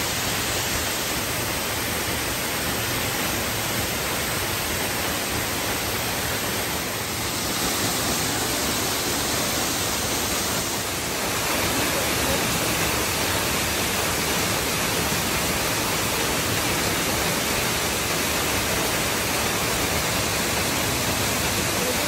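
Waterfall pouring: a steady, even rush of falling water close by.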